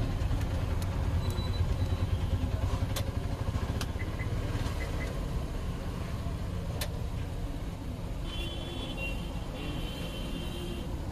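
Steady low rumble of street background noise, mostly traffic, with a few faint sharp clicks and a faint high tone near the end.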